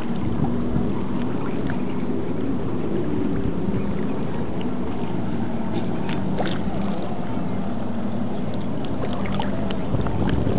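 Wind buffeting the microphone over lapping lake water, a steady rumbling hiss, with a few small sharp splashes or clicks around the middle.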